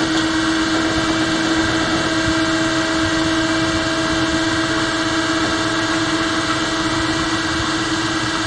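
Electric drive motor of a homemade solar boat running steadily under way, with a constant whine that holds one pitch over a steady rushing noise.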